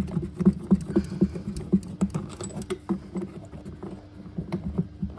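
A hand tool clicking quickly and evenly, about four to five clicks a second, over a faint steady hum, as the fixing stud of an old basin tap is unscrewed from under the sink.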